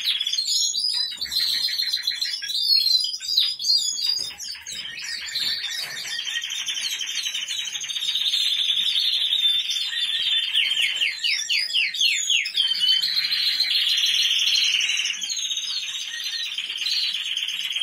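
Several caged canaries singing together: fast rolling trills and chirps overlapping in a continuous chorus, with runs of rapid repeated notes around the middle.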